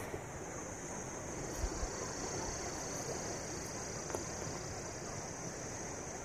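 Steady outdoor background noise: an even rushing hiss with a constant high-pitched band above it and a few faint ticks.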